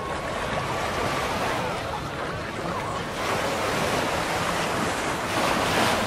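Atlantic surf washing onto the beach, with wind on the microphone. The wash swells about halfway through and again near the end.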